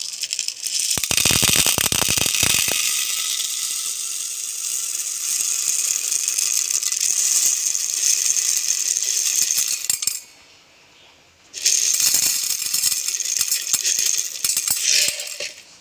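Dried whole green gram (mung beans) pouring from a plastic jar into a plastic measuring cup, a continuous dry rattle, with some beans spilling and scattering onto the steel vessel beneath. The pouring stops for about a second and a half about two-thirds of the way through, then starts again.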